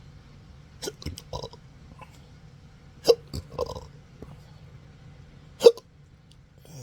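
Chronic intractable hiccups: three sharp throat clicks about two and a half seconds apart, the first two each followed by a short throaty burst, the last the loudest. The spasms are a sign of nerve damage driving the diaphragm.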